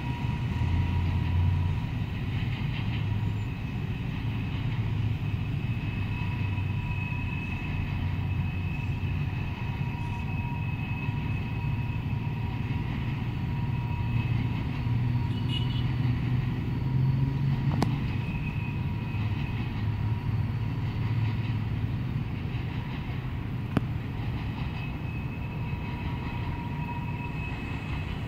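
A freight train of empty covered hopper cars rolling by and receding: a steady low rumble of wheels on rail, with faint high steady tones that come and go over it.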